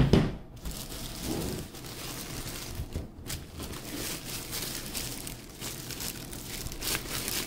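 A single knock at the start, then clear plastic bag crinkling and rustling steadily as a new shoe wrapped in it is handled and turned over.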